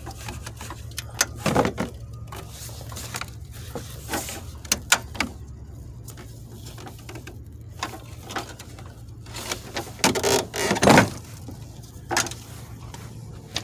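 Scattered clicks, knocks and rustles, with a louder burst of rustling about ten seconds in, over a steady low rumble.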